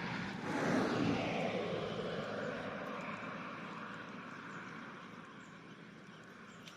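A passing vehicle: a broad rushing engine-and-tyre sound that peaks about a second in with a falling pitch, then fades slowly away.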